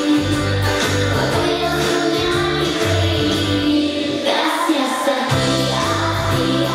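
Upbeat pop song performed live: a young female voice sings lead into a microphone over a band with a steady bass beat. About four seconds in the bass drops out for about a second, then returns.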